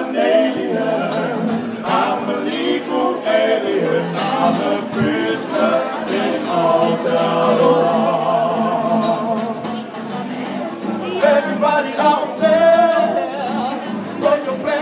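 A group of men singing together into microphones, amplified through a PA.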